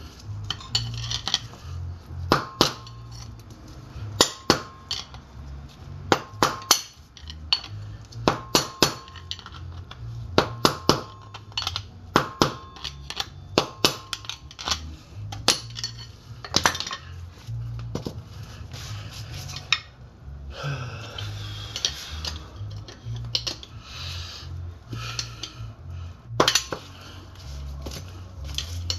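Hammer blows driving a wheel bearing race out of a steel front wheel hub: repeated sharp metallic strikes, mostly in quick pairs about every two seconds, each with a brief ring. The strikes pause for a few seconds about two-thirds through, with softer scraping, then resume.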